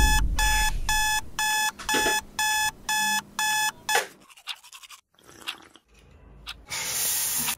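Electronic alarm clock beeping: eight evenly spaced beeps, about two a second, stopping about four seconds in. Faint scratching follows, then a brief loud hiss near the end.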